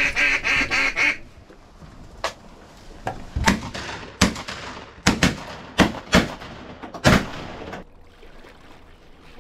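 Duck quacking in a quick series over the first second. Then a volley of shotgun blasts from about two seconds in: a couple of faint shots, then about seven loud, sharp blasts in quick succession, the last the loudest.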